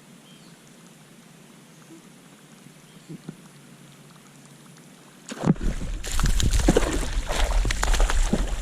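Quiet hush with a couple of faint clicks, then about five seconds in a sudden burst of loud splashing and sloshing water as a hooked bass thrashes at the surface right beside the kayak.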